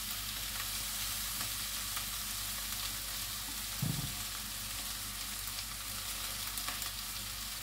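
Sabudana khichdi (sago pearls with potato and tomato) sizzling steadily in a pan over high heat, with a brief low bump about four seconds in.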